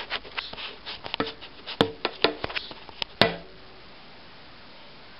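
Merkur 25c open-comb safety razor with a Voskhod double-edge blade scraping through stubble in a quick run of short, scratchy strokes, with two sharper clicks among them. The strokes stop after about three and a half seconds.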